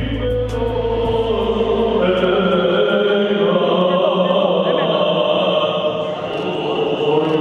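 Choral chant: several voices singing long held notes. A low drone under it fades out about three seconds in.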